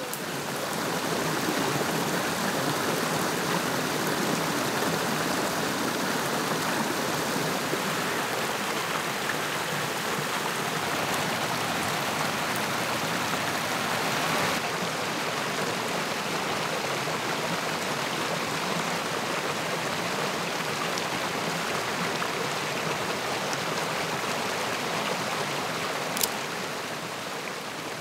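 Steady rush of water, fading in over the first second and easing off near the end, with one sharp click near the end.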